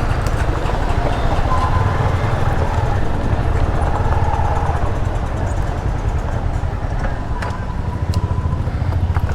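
A motor vehicle's engine running, a steady low rumble, with a few faint higher tones and light clicks over it.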